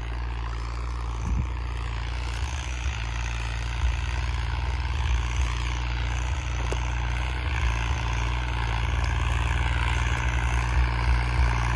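New Holland 3630 tractor's diesel engine pulling a 17-tine cultivator through fairly hard soil, a steady low drone that grows slowly louder as the tractor approaches.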